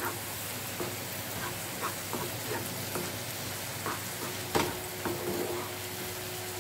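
Wooden spatula stirring eggs into frying courgette in a non-stick pan, scraping and knocking against the pan every half second or so over a steady sizzle. The loudest knock comes about four and a half seconds in.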